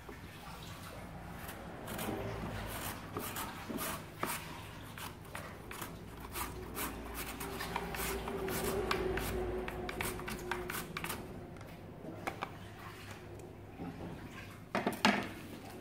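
A carrot being julienned on a plastic mandoline grater: quick, repeated scraping strokes of the carrot across the blades, which stop about eleven seconds in. A couple of sharp knocks near the end.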